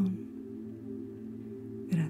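Soft ambient background music: a few low sustained tones held steady.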